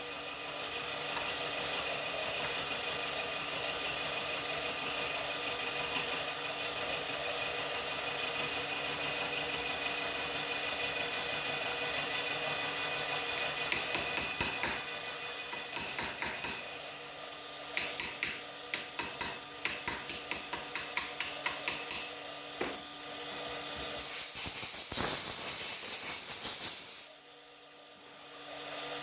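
Workshop power tool running with a steady motor hum while cutting metal, with quick rasping strokes in the middle and a louder hiss near the end, before the motor cuts off.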